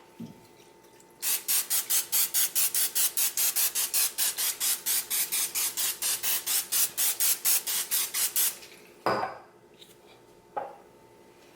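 A seasoning shaker shaken hard over turkey legs, about five rattling shakes a second for some seven seconds, then two knocks as it is set down or tapped.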